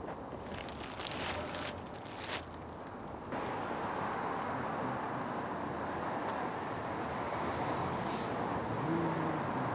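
Quiet outdoor ambience with a few brief rustles, then about three seconds in a steady hiss of road traffic noise starts abruptly and carries on.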